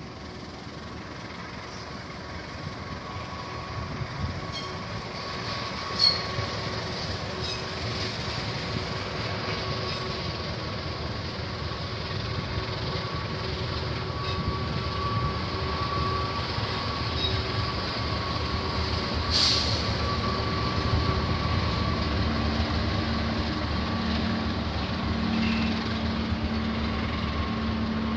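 Locomotive-hauled passenger train approaching and passing, its rumble growing steadily louder, with a steady thin squeal from the wheels on the rails. A few sharp clicks come between about four and eight seconds in, the loudest about six seconds in.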